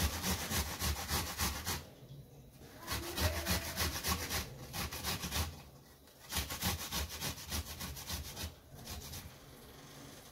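Tomato being grated on a metal box grater: quick, even scraping strokes, about four or five a second, in four runs with short pauses between, fading near the end.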